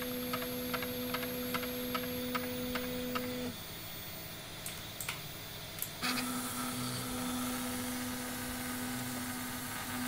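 Prusa i3 3D printer's stepper motors running through an auto-leveling routine: a steady hum with a rapid series of light ticks, about three a second, for the first few seconds. After a quieter pause with a couple of clicks, the motors hum and whir again from about six seconds in as the print head travels.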